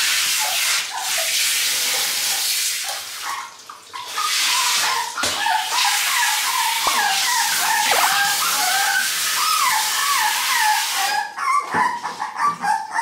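Water spraying from a handheld shower head onto a wet toy poodle puppy, which cries and whines in a run of short, wavering high yelps from about five seconds in. The spray stops near the end.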